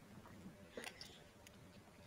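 Faint eating sounds as odong noodles are taken from a spoon into the mouth, with one short, louder noise a little under a second in.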